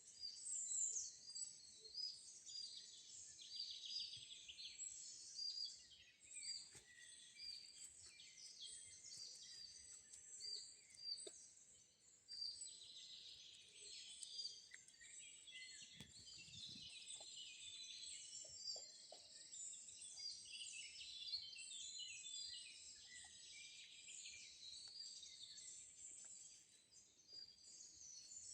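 A dense chorus of many small songbirds chirping and trilling at once, high-pitched and continuous, with no single call standing out for long.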